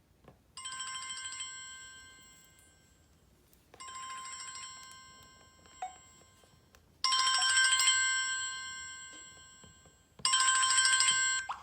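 Samsung Galaxy S4 ringtone: a trilling, bell-like ring heard four times, each ring about a second long and about three seconds apart. The last two rings are louder.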